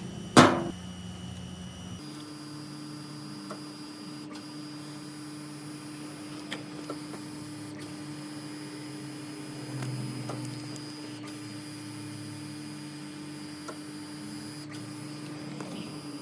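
A single sharp metallic clank about half a second in, then a steady electrical hum with a few light taps and knocks.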